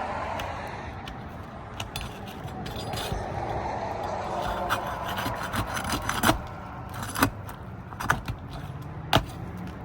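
Asphalt roof shingles being pried up to get at their nails, with a steady scraping and rubbing of a tool sliding under the shingles. In the second half there are four or five sharp pops as the shingles give way.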